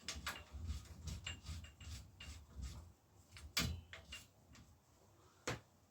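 Faint small clicks and taps of a bicycle rear derailleur being lined up and screwed onto the frame, metal parts handled by hand, with a sharper knock about three and a half seconds in and another near the end.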